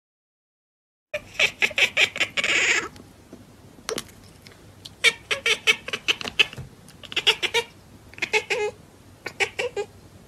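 Cat chattering at the window in several bursts of rapid chirps and clicks, starting about a second in.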